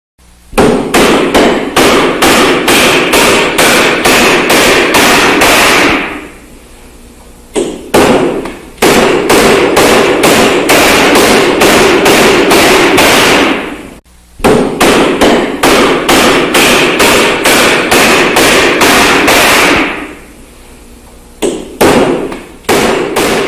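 Loud gag sound effect: rapid rhythmic slapping impacts, about three a second, over a dense continuous noise, in stretches of about six seconds broken by short pauses with a few isolated hits. The whole sequence repeats about halfway through, as a loop.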